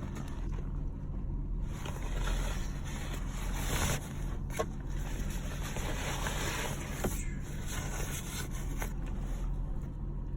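Steady low hum of an idling car heard from inside the cabin, with stretches of rustling and a few small clicks.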